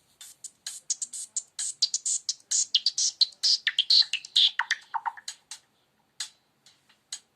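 A Nokia Lumia 521 ringtone of quick, high plinking notes, sparse at first, crowding together in the middle with a run that falls in pitch, then thinning out to a few scattered notes near the end.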